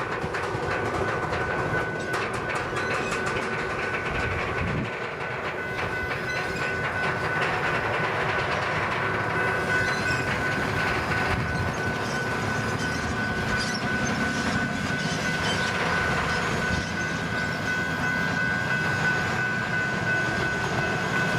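Freight train cars rolling past on the rails, with wheels clicking over the rail joints and a steady high-pitched tone throughout.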